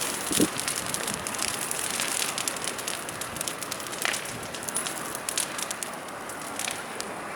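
Bonfire of firewood burning, crackling with a steady hiss and many small sharp pops.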